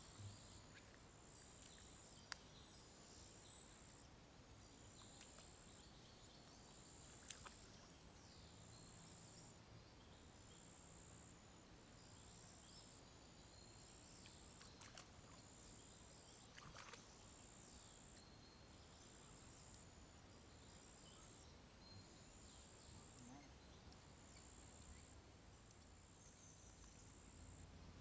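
Near silence: faint open-air ambience with a thin, high insect buzz repeating in short bursts about once a second, and a few faint clicks.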